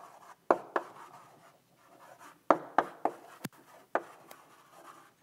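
Chalk writing on a blackboard: irregular sharp taps as the chalk strikes the board, with faint scratching strokes between them.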